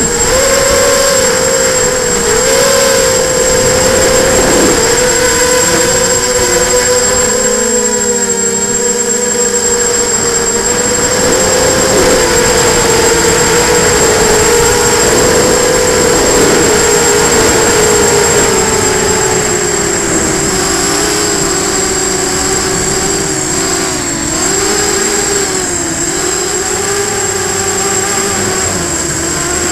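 FPV hexacopter's brushless motors and propellers whining, heard from the craft's onboard camera. Several close tones rise and fall together as the throttle changes, sagging lower in pitch for a while past the middle.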